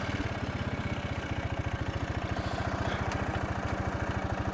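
Honda ATV engine idling steadily with an even, rapid pulse.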